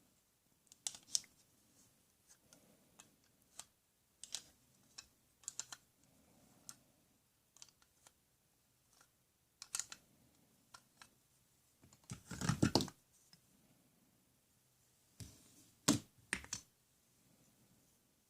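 Scattered light clicks and taps, with a louder clattering burst of about a second two-thirds of the way through and a few sharper knocks shortly after.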